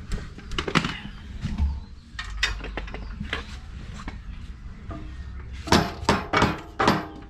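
Scattered metal clanks and knocks as steel suspension parts and tools are handled, with a quick run of louder, ringing metal-on-metal clanks near the end.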